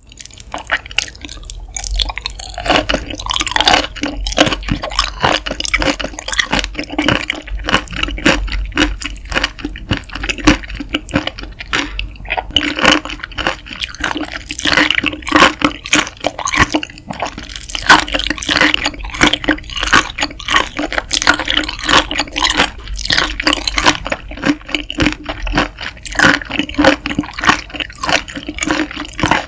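Close-miked raw octopus making continuous wet, sticky squelching and clicking sounds.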